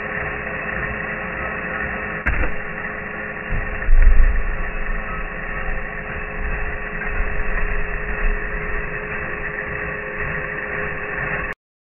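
DeWalt power drill running steadily with a whine, boring a 1.5-inch bit on an extension into a wooden log and chewing through the wood. It grinds louder about four seconds in and cuts off suddenly near the end.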